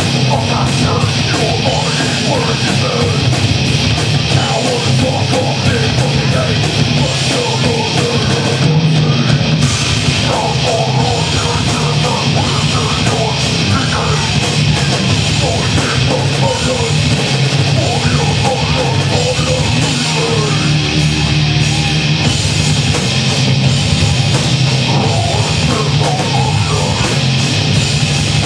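A live heavy metal band playing loud and without a break: distorted electric guitars, bass guitar and a drum kit.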